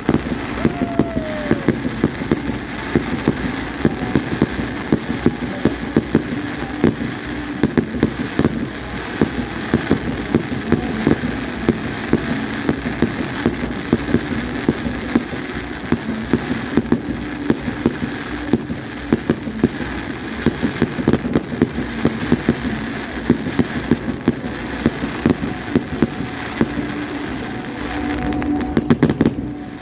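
Fireworks display of ground-fired cakes: a continuous rapid barrage of launches and bursts, several bangs a second, thickening into a fast crackling flurry near the end.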